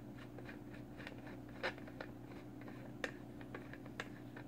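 Faint, scattered small clicks and ticks of metal threads and fingers as a Wotofo Serpent Mini RTA tank is unscrewed by hand from its 510 connection, over a low steady hum.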